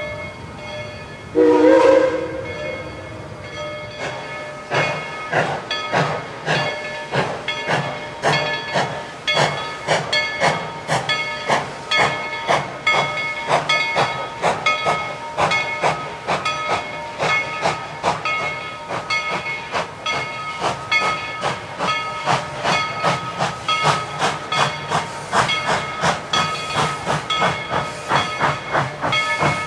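Steam locomotive No. 190 gives one short whistle blast, then starts off, its exhaust chuffing in a beat that quickens as it gathers speed, over a steady hiss of steam.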